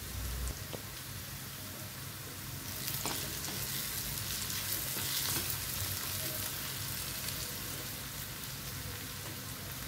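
Chopped onions, green chillies and curry leaves sizzling in hot oil in a metal kadai as a spatula stirs them, with light scrapes and clicks against the pan. The sizzle grows louder from about three seconds in while the turmeric is mixed through.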